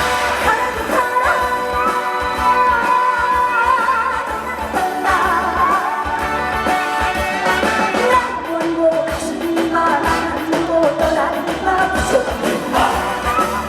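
Trot song playing loud, a full band-style arrangement with a melody line that bends and slides over the accompaniment.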